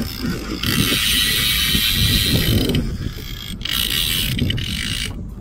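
Conventional fishing reel ratcheting as line is wound in on a hooked fish, a steady mechanical buzz that breaks off briefly about three seconds in and again near the end, over a low rumble.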